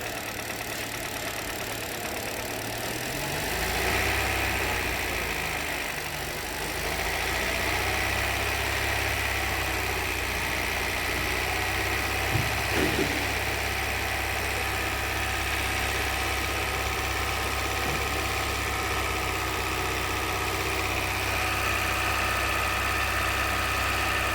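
Hyundai Verna petrol engine running. It is revved up briefly about three to four seconds in, then settles to a steady idle. There is a short clunk about halfway through.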